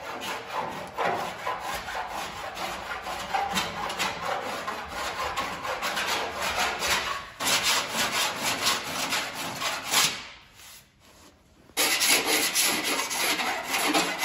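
Bastard-cut body file on an adjustable holder rasping back freshly applied lead filler on a steel body-panel joint, in quick repeated strokes. The filing stops briefly about ten seconds in, then resumes louder.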